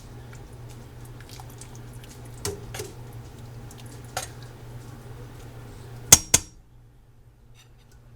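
A metal spoon knocking and clinking against a soup pot: a few light knocks, then two sharp, ringing clinks about six seconds in. A steady low hum runs underneath.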